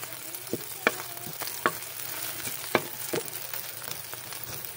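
Garlic and onion sizzling as they are sautéed in a metal pan until they brown. A wooden spatula stirring them gives several irregular sharp knocks and scrapes against the pan over the steady sizzle.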